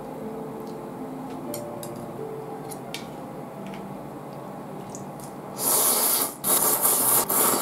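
Chilled ramen noodles being slurped in loud, hissing pulls with short breaks between them, starting about five and a half seconds in after a few seconds of faint clicks.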